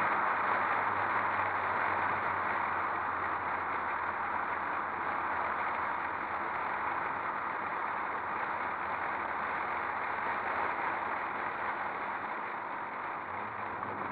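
Wind and road noise on a camera mounted outside a moving convertible: a steady rushing hiss with a faint low engine hum beneath it, growing gradually quieter as the car slows.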